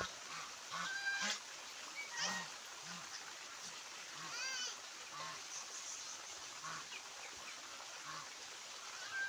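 Domestic geese honking in short, scattered calls, mixed with other brief calls from the flock of ducks and ducklings.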